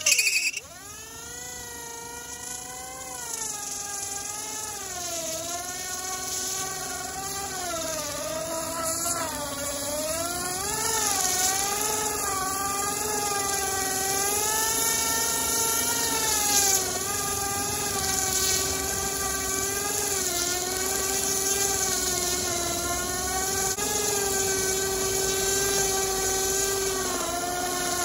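Electric scooter's front hub motor whining at full power as its tire spins against concrete in a burnout, over a steady hiss of rubber scrubbing. The whine rises in pitch near the start, then wavers up and down as the spinning wheel speeds up and bogs, and grows louder through the first half.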